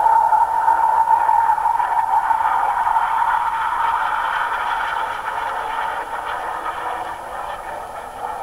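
Display aircraft's engine noise, a steady rushing sound that fades gradually as the aircraft draws away.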